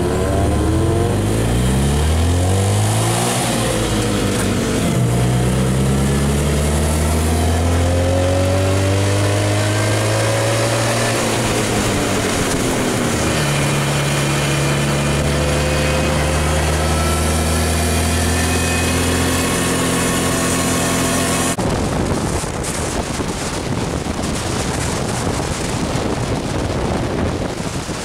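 Vehicle engine heard from on board while driving, pulling up in pitch through the gears with drops at the shifts, then holding a steady cruise. About three-quarters of the way through, it gives way to loud wind rushing over the microphone while riding.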